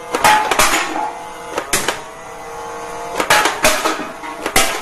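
Toy foam-dart blaster firing, with the darts knocking empty metal drink cans off a stack of foam blocks: a series of sharp clacks and clatters, some followed by brief metallic ringing as the cans fall.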